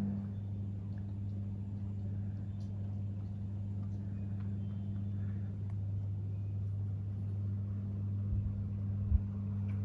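Steady low electrical hum of a motor or appliance, with two soft low thumps near the end.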